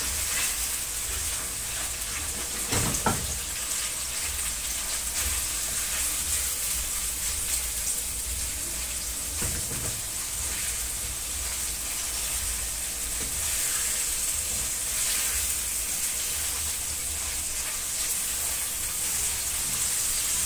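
Beef liver and chopped beef fat frying in hot vegetable oil in a nonstick pan: a steady sizzle, with a silicone spatula stirring through the pieces. There is a brief knock about three seconds in.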